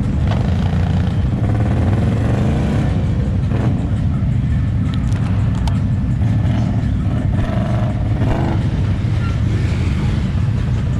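Off-road vehicle engine running steadily on a trail.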